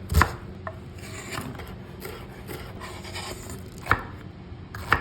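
Kitchen knife cutting and scraping on a wooden cutting board, with a few sharp knocks of the blade against the board: about a quarter second in, near four seconds, and at the very end.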